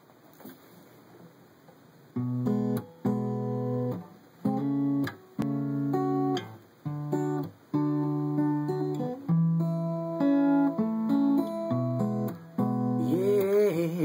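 Acoustic guitar intro, strummed chords in short stop-start phrases, starting about two seconds in. A man's singing voice comes in near the end.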